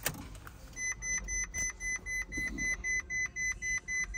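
Ferrari 458's dashboard warning chime beeping repeatedly at about three short beeps a second, starting about a second in, after a single click. The chime comes with the ignition switched on, and the cluster shows a door-open warning.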